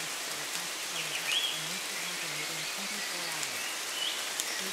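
Steady rain, with a few brief high chirps from birds about a second in and again near the end. A faint, low-pitched voice speaks under the rain.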